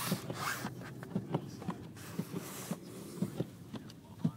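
Car driving slowly through deep snow, heard from inside the cabin: a steady low rumble with frequent irregular light knocks and two hissing swishes.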